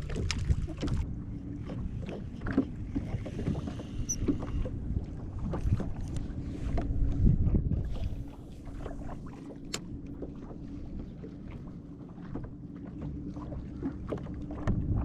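Knocks and bumps on the hull of a small Gheenoe skiff as the anglers move about in it, with water sloshing and a faint steady hum underneath; the knocking is heaviest about seven seconds in.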